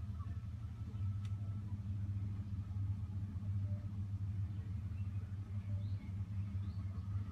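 Steady low rumble of a car driving, engine and road noise, with one faint tick about a second in.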